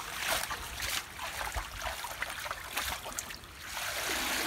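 Water splashing and dripping as a mesh net bag of live fish is pulled up beside a wooden canoe, then, about four seconds in, a steady stream of water running out of the net as it is lifted clear.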